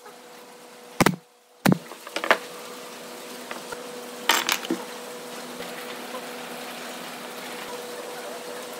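SOYT pneumatic brad nailer firing twice into pine board, two sharp pops about a second in and half a second apart, followed by a softer knock. A short noisy clatter comes a little past four seconds, over a steady low hum.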